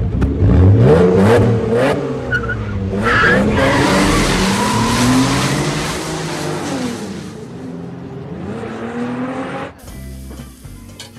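Car engine revving hard as the tires spin in a burnout, the loud tire squeal lasting several seconds before the engine note falls away and fades. Near the end it cuts to a much quieter background.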